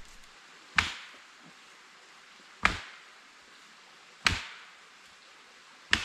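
Four sharp chopping strikes on wood, evenly spaced about a second and a half apart, each ringing off briefly.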